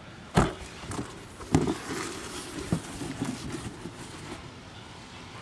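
Cardboard box handled in gloved hands: a few light knocks, one about half a second in and others about a second apart, over soft rustling and rubbing.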